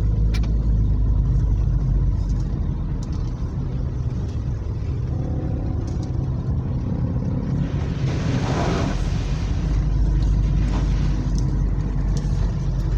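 Vehicle engine running with a steady low rumble under heavy rain, on a flooded road. About eight seconds in, a louder rush of hiss swells and fades, like a car passing through the floodwater.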